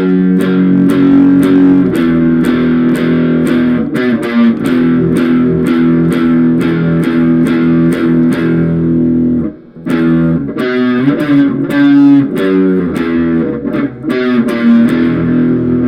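Instrumental break of a grunge-style rock cover: electric guitar and bass over a steady beat. The music drops out briefly about two-thirds of the way through, then the band comes back in.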